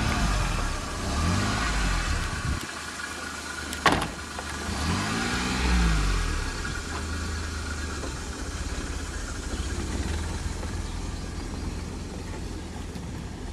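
Car engine revved repeatedly by pumping the accelerator pedal, rising and falling several times, with a sharp click about four seconds in; after about seven seconds it settles into a steadier run.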